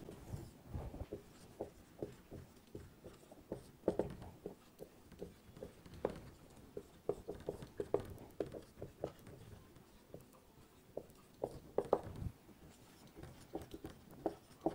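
Writing by hand: a pen scratching and tapping in short, irregular strokes, with brief pauses between groups.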